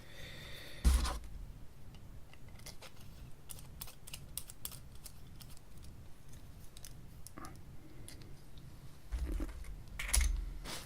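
Light clicks and taps of small mechanical pencil parts being handled on a desk, with a louder bump about a second in and a few more bumps near the end.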